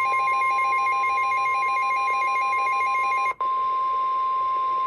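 NOAA Weather Radio 1050 Hz warning alarm tone, a single steady high beep signalling that a warning message is about to follow. A fast warbling electronic beep runs over it until about two-thirds through, then cuts out with a momentary dropout, leaving the steady tone alone.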